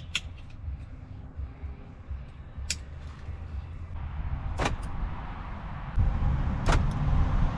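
2000 Lexus RX300 power door lock actuator clicking as it locks and unlocks under test, a few sharp clicks about two seconds apart over a low rumble; the new actuator is working.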